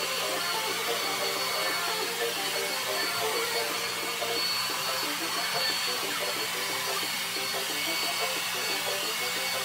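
Handheld hair dryer running steadily, a constant rush of blown air.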